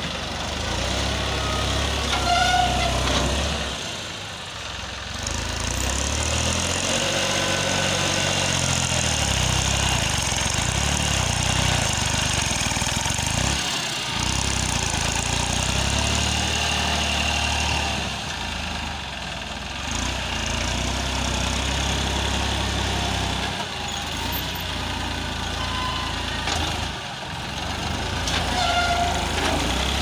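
Tractor diesel engine working a front loader as the bucket digs and lifts sand. The engine note rises and falls with the load, with several brief dips where it eases off.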